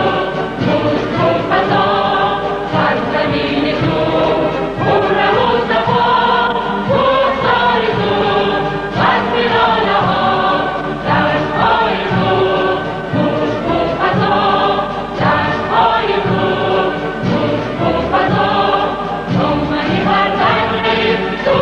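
Large mixed choir of men and women singing sustained, slowly moving phrases with an orchestra accompanying.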